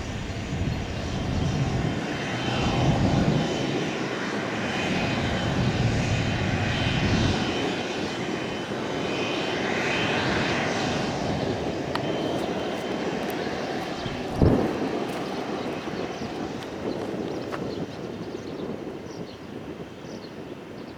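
Cessna Citation Latitude business jet's twin Pratt & Whitney PW306D turbofans running during its landing, the engine noise swelling and easing several times, then fading near the end. A single sharp thump about two-thirds of the way through.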